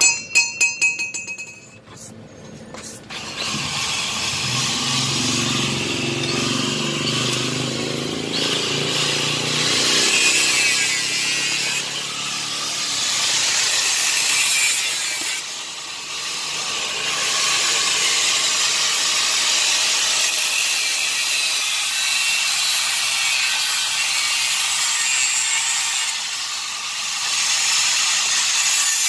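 An electric angle grinder grinding steel: a steady, loud, high-pitched grind with short dips as the disc eases off the metal. It is opened by a quick run of sharp metal clinks that ring briefly.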